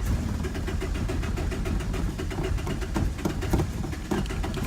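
Nissan 240SX S13's four-cylinder engine being started after sitting a long time, running rough and uneven with a dense, irregular knocking.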